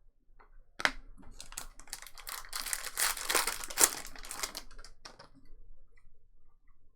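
Trading cards being handled: a run of quick clicks and rustling as a stack of chrome cards is flipped through, densest in the middle, then a few scattered clicks.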